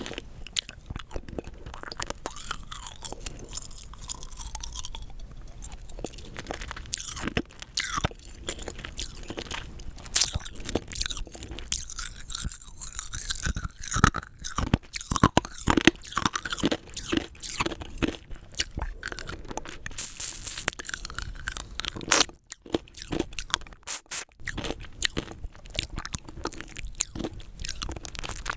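Rock candy being bitten and crunched between the teeth, a dense run of irregular sharp cracks mixed with chewing, with a couple of brief pauses late on.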